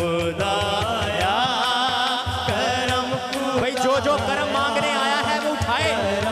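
A man singing a hamd, a devotional Islamic praise song, in long wavering melodic lines, over a steady low beat.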